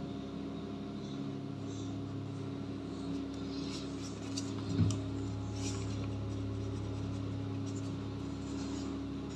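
Pen nibs scratching and brushing on sketchbook paper in short strokes over a steady low hum, with a single knock just before five seconds in.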